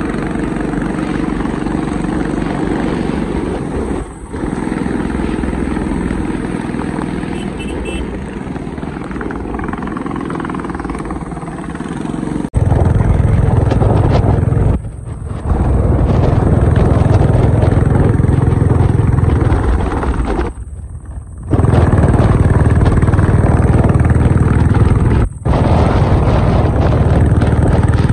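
Motorcycle on the move: engine running under heavy wind rush on the microphone. It gets markedly louder about halfway through, with a few brief drops in level.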